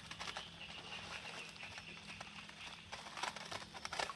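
Bare hands groping in shallow water among bamboo sticks, making small irregular splashes and rustles while feeling for fish.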